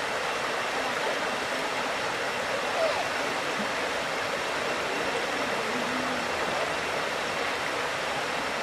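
Steady rushing of a waterfall, with faint voices briefly audible under it.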